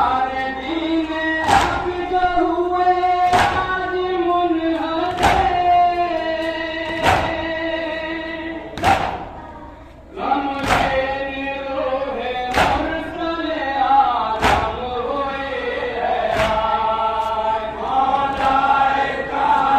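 Men chanting a noha together, with a loud chest-beating slap of matam about every two seconds in time with the chant. The chant briefly drops away about halfway through.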